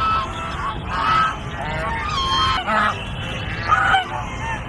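A flock of domestic geese honking, calls repeating every second or so and overlapping.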